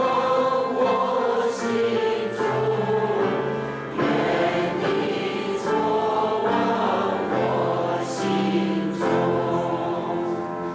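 A choir singing a Christian hymn, several voices holding sustained chords that change every second or so.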